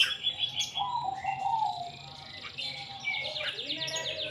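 Caged tuwu (lekkolek) bird singing a varied song: clear high whistles, a lower warbling phrase, and in the second half a fast rattling trill with falling slurred notes.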